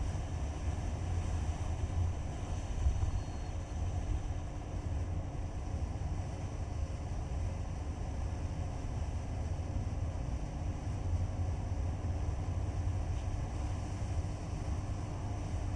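Skoda Kodiaq driving along a road: steady low road noise from the tyres and engine, holding even with no changes in speed.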